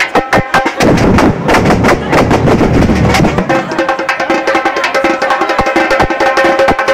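A supporters' samba drum section (bateria) playing surdo bass drums and other drums in a fast, dense rhythm. The drumming is heaviest from about one second in until about three and a half seconds in.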